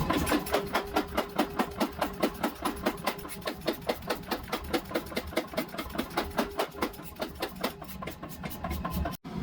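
Rapid, evenly spaced hammer blows on hot steel during forging, about five strikes a second, breaking off abruptly near the end.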